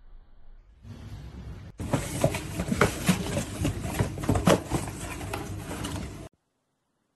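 A dog tearing at and shaking a cardboard box with its head, making crunching, rustling cardboard with many sharp crackles. It cuts off suddenly near the end.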